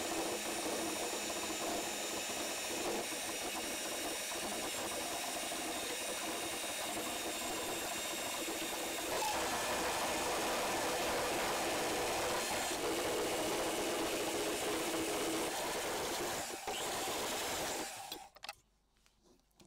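Electric hand mixer running steadily, its twin wire beaters whisking egg yolks and oil into mayonnaise in a stainless steel bowl. It gets a little louder about halfway through and switches off shortly before the end, followed by a few faint clicks.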